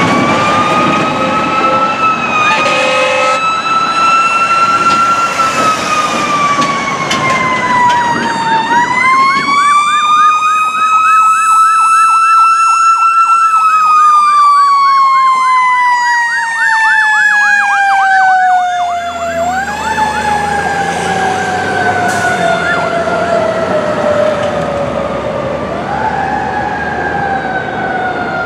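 Fire apparatus sirens: an electronic siren wailing, slowly rising and falling in pitch, joined from about nine seconds in by a second siren on a rapid yelp for around ten seconds. A short horn blast sounds about three seconds in, and a low engine rumble comes in near the end.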